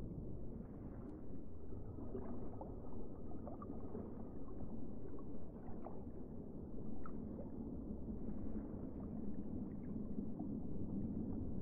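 Muffled underwater noise picked up by a submerged camera: a steady low rumble of moving water with faint scattered clicks.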